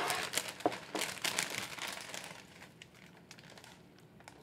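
Plastic bag of fresh spinach crinkling as a hand reaches in and pulls out leaves. Dense crackling at first, thinning to a few faint crinkles over the second half.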